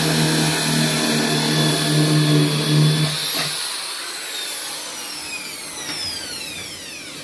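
Powertex electric jigsaw's motor running steadily, then switched off about three seconds in, its whine falling in pitch as the motor winds down.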